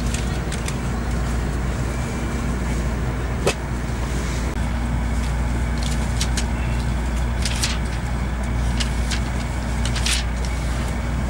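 Steady low rumble and hum inside a Shinkansen Nozomi passenger car, with a few faint clicks and knocks.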